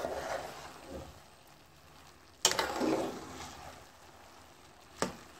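A spatula stirring and turning steaming, nearly dry rice and chicken in a metal pan, scraping through the grains. There is a sharp knock on the pan about halfway through and another near the end.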